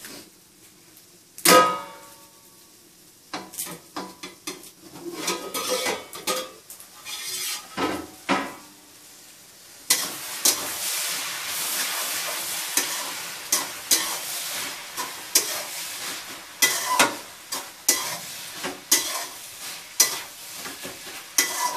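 Garlic cloves being peeled by hand over a plastic bag: dry skins crackling and the plastic rustling, with scattered clicks and a sharp knock near the start. From about ten seconds in a steady hiss runs underneath.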